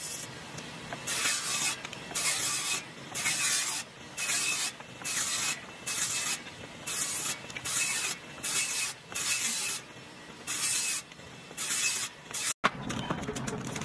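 Table saw ripping thin strips off a wooden board: a rapid series of short bursts of blade-cutting noise, one for each quick pass, about one every three-quarters of a second. The sound drops out briefly near the end.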